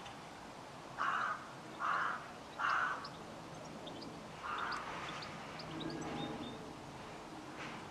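A crow cawing four times: three caws in quick, even succession, then a fourth after a short pause, with faint small-bird chirps in the background.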